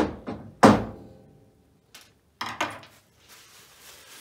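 Metal parts clanking as a removed lathe bracket is knocked and set down on a hard surface. There are three strikes at the start, and the third is the loudest and rings briefly. A second cluster of clanks comes about two and a half seconds in, followed by faint handling noise.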